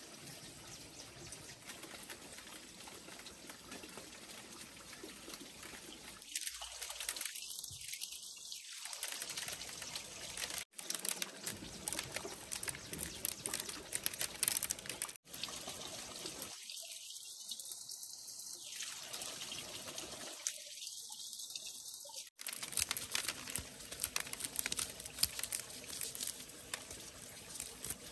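Dried corn kernels being shelled by hand off the cob, pattering and rattling into a woven bamboo tray as a dense run of small clicks.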